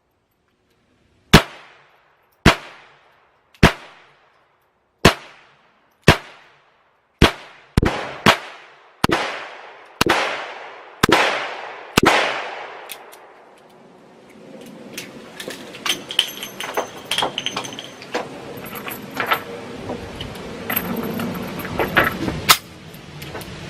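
Firearm shots, about a dozen over some twelve seconds, each a sharp crack with an echoing tail, coming faster toward the end of the string. After that, quieter scattered clicks and knocks, with one more sharp crack a little before the end.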